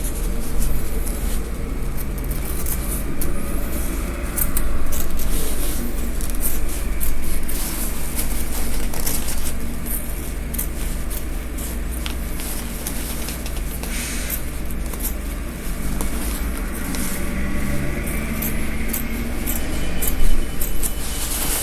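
Scissors snipping and fabric rustling as a gown's seam is cut apart, a string of short clicks. Under it runs a steady low rumble of background noise.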